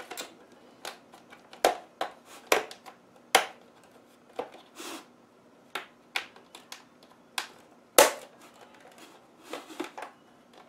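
Plastic snap-fit hooks of a Samsung SyncMaster LCD monitor's case popping loose as the front bezel is pried off the back cover: irregular sharp clicks and snaps, the loudest about eight seconds in.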